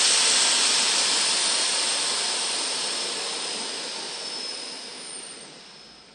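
Residual compressed air hissing out of a 27-gallon Fortress air compressor's tank as it is drained, the hiss fading steadily as the tank empties.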